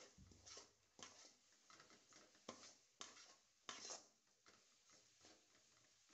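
Faint scraping of a spatula stirring dry grated coconut and semolina in a metal kadhai as the mix is roasted, in short irregular strokes about once or twice a second.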